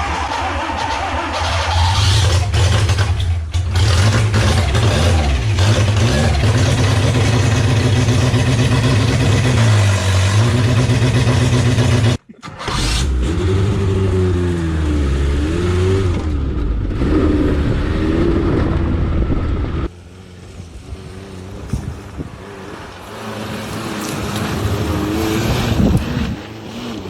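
Rebuilt 1.3-litre four-cylinder Suzuki Samurai engine running, its pitch rising and falling as it is revved. The sound breaks off briefly about twelve seconds in and is quieter after about twenty seconds.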